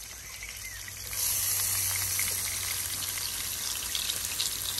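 Olive oil sizzling and crackling on high heat in a frying pan around stuffed mushrooms. The sizzle grows louder about a second in, as another mushroom goes into the hot oil.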